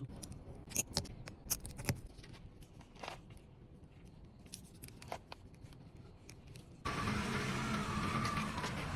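A car: a low engine rumble with scattered sharp clicks and knocks, then about seven seconds in a sudden step up to louder, steady driving noise.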